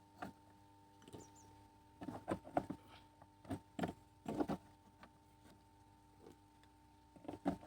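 Sharp clicks and knocks in small clusters as fuse carriers are pushed back into a three-phase motor starter's fuse holders, over a faint steady hum.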